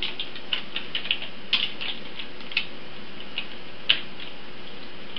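Computer keyboard being typed on: scattered, irregular key clicks, with one sharper keystroke about four seconds in.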